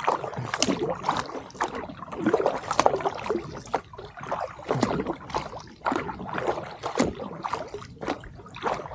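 Kayak paddle strokes: the blades dip into and lift out of calm water again and again, each stroke a short splash with dripping.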